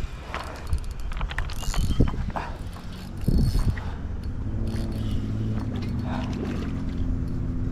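Fishing reel working: scattered clicks and knocks, then about halfway in a steady low whirring as the line is wound in.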